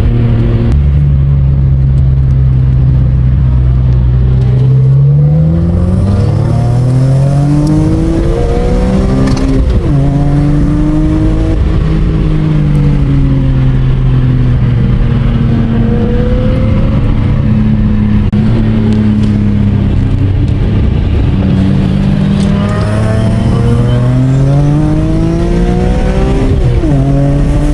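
BMW M3 race car engine under hard acceleration, its pitch climbing steeply to a sudden drop about ten seconds in, easing down through the middle, then climbing again to another sudden drop near the end.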